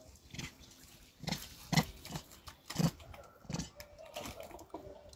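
Rhesus macaque eating a peeled banana close up: a run of about six short, loud biting and chewing noises, each lasting under half a second.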